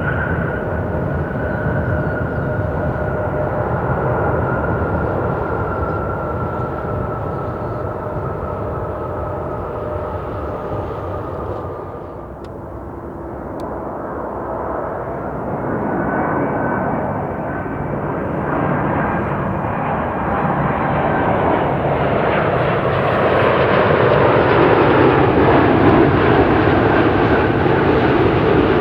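Jet engines of an arriving Boeing 747-400 whining as they slowly fade. About halfway through, the engines of an arriving Airbus A350-1000 take over and grow steadily louder.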